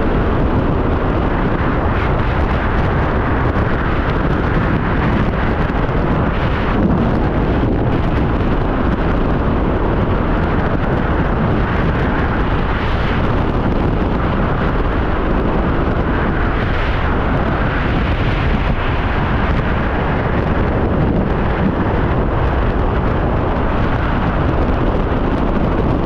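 Freefall wind rushing over a skydiving camera's microphone: a loud, steady rush of air with no letup.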